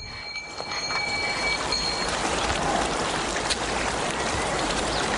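Steady rushing noise with a rain- or water-like texture that swells in just after the start. Two faint high steady tones stop about two seconds in.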